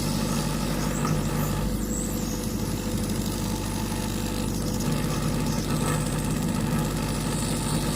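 Steady hum and hiss from a hot-air rework heating machine warming the phone's circuit board from below.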